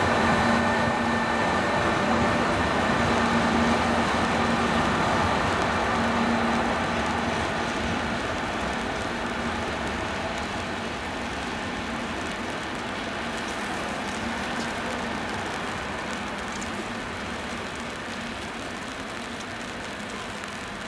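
Train moving away: a steady hum with several held tones over rolling noise, fading slowly.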